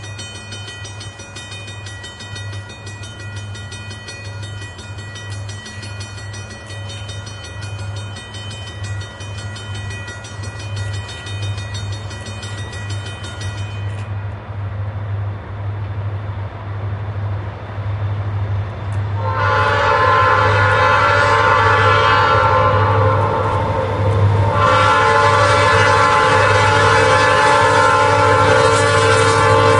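Approaching freight train led by EMD diesel locomotives: the low engine rumble grows steadily louder, then the lead locomotive sounds its multi-note air horn loudly about two-thirds of the way in, eases briefly, and sounds again. For roughly the first half a thin high ringing tone is heard, stopping abruptly.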